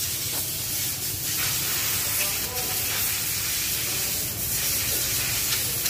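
Steady, loud hiss filling the background, with a few faint clicks.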